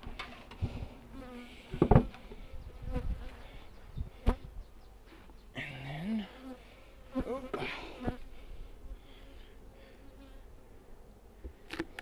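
Honeybees buzzing around an opened beehive, swelling and fading as they fly about. A few sharp knocks come as the hive boxes are handled and set back in place, one about two seconds in, one about four seconds in and one near the end.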